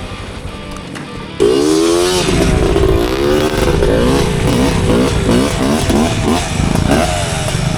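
Off-road motorcycle engine revving, its pitch rising and falling over and over as the throttle opens and closes. It starts abruptly about a second and a half in, after a quieter stretch.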